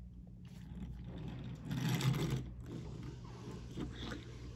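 Hot Wheels die-cast Ford Mustang pushed by hand across a wooden tabletop, its small wheels making a light whirring rattle that is loudest about two seconds in.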